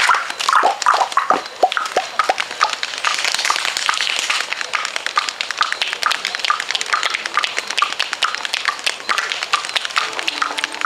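Balinese Kecak chant: a male chorus chanting short sharp "cak" syllables in a fast, regular pulse, about three a second. Falling shouted calls come in the first two seconds, a rushing hiss swells in the middle, and a low held sung note joins near the end.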